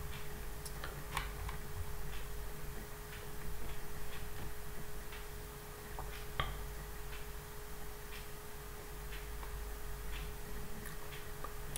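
Faint, irregular short clicks over a steady low hum: quiet room tone at a computer.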